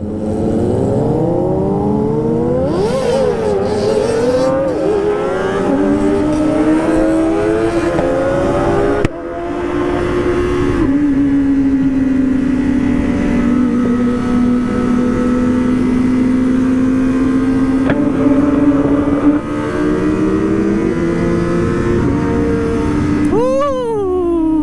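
Kawasaki ZX-25R 250 cc inline-four sport bikes with a wasp-like engine note. First several engines rev up and shift through the gears pulling away together. Then one engine holds a steady cruising drone, and near the end its revs rise sharply and fall back.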